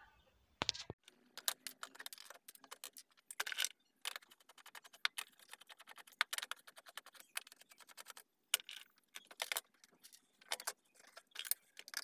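Hands taking the metal front panel off a Stranger PBT-701 amplifier: irregular metallic clicks, clinks and short rattles of screws, knobs and sheet metal, with a run of rapid ticks in the middle.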